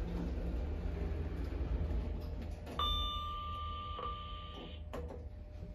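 Lift car's steady low hum, then a two-note electronic chime about three seconds in, a higher note then a slightly lower one, lasting about two seconds, followed by a short click.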